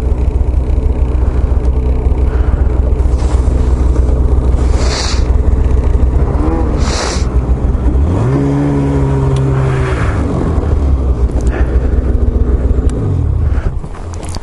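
Snowmobile engine running under way, its pitch rising about eight seconds in, holding, then dropping back near the end, with a few short hissing gusts over it.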